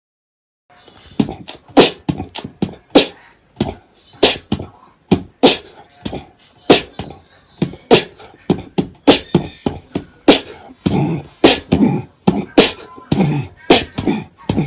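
Beatboxing: sharp mouth-made percussion in a steady beat, with a strong hit a little under twice a second and lighter clicks between, starting about a second in.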